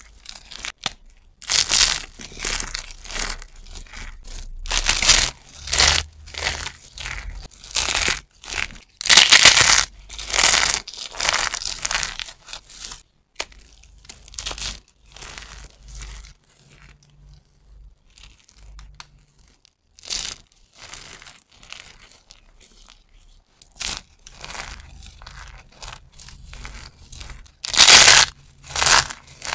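Dry bar soap crushed and crumbled between the hands: brittle shavings and chunks crunching in irregular bursts. A quieter stretch falls in the middle, and a loud crunch comes near the end.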